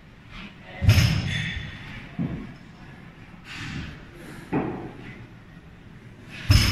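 Barbell loaded with rubber bumper plates set down on the floor during deadlifts: a heavy thud with the plates rattling briefly about a second in, two lighter knocks, and another heavy thud near the end.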